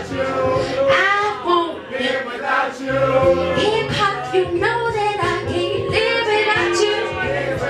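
A woman singing a melodic vocal line into a handheld microphone over a backing beat with a steady bass line.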